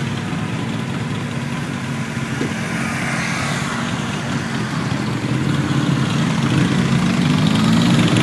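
Motorcycle engines idling with a steady low hum that grows louder over the last few seconds.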